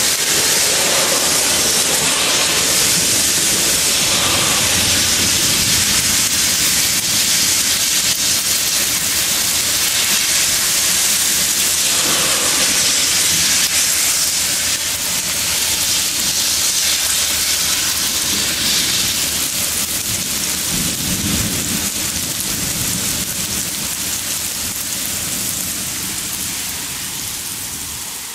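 Heavy thunderstorm rain pouring down, a dense steady hiss, with low rumbles of thunder. The sound fades out near the end.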